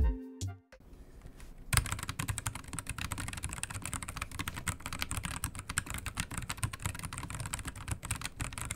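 Fast, continuous typing on an AZIO Cascade 98 Slim low-profile mechanical keyboard with its included low-profile Gateron switches, in stock form without a tape mod. The sound is a dense, even patter of keystrokes starting about a second and a half in, just after a short musical sting ends.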